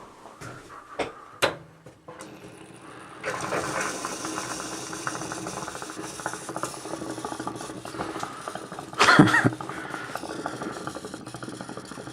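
A few sharp knocks, then about three seconds in water starts rushing steadily out of the opened household plumbing as the lines drain down after the main shutoff is closed. A brief louder burst comes about nine seconds in.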